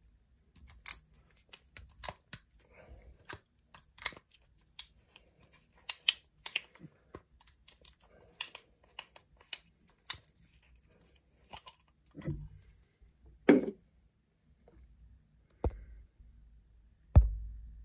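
Irregular small clicks and taps from small parts and tools being handled, with a few louder, duller knocks in the second half.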